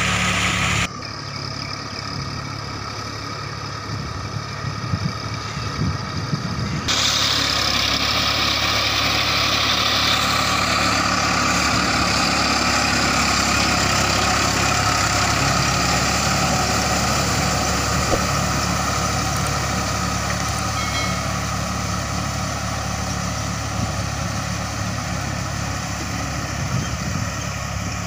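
Massey Ferguson 5245 DI tractor's three-cylinder diesel engine running steadily while it drives a rotavator through flooded paddy mud. The sound drops abruptly about a second in and comes back fuller about seven seconds in.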